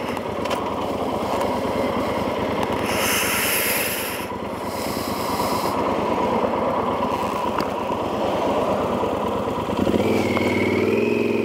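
Yamaha XT1200Z Super Tenere's parallel-twin engine running at low revs, heard through a mic inside the rider's helmet, with a brief hiss about three seconds in. Near the end the revs rise in pitch as the bike accelerates away.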